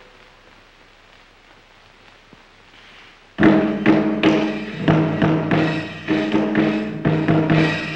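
Film score: about three seconds of faint hiss, then music cuts in suddenly, loud percussion strikes about two a second over steady low pitched notes.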